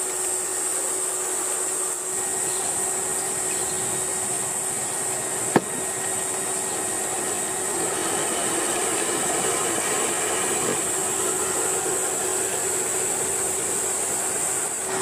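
Small electric motor and geartrain of a scale RC rock crawler whining steadily as it crawls over rock, under a steady high hiss. One sharp click about five and a half seconds in.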